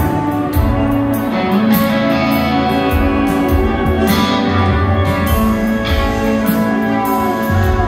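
Live band music heard from the audience in a concert hall: guitar and keyboards over drums and cymbals, with no singing in this stretch.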